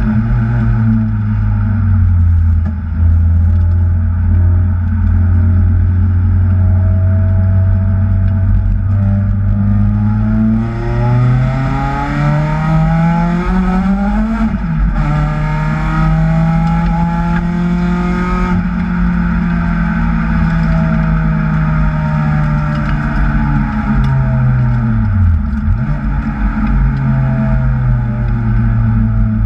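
Kraftwerks-supercharged Acura TSX engine under load on a timed run. The revs climb steadily for several seconds and drop sharply near the middle, as at a shift or lift. They then hold fairly steady, dip briefly near the end and pick up again.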